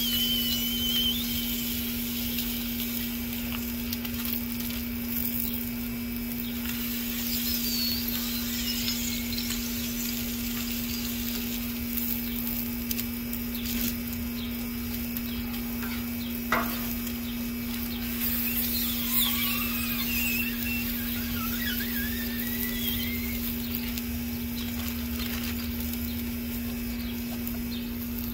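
Sausage patties sizzling on a hot flat-top griddle, with high wavering squeals a few times as they are pressed under a steel smasher and parchment paper. A steady low hum runs beneath, and there is one sharp knock about halfway through.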